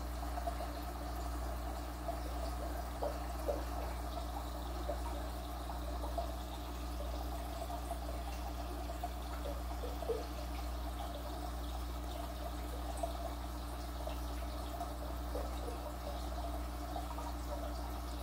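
Aquarium sponge filter bubbling steadily, with many small bubble pops over a constant low hum.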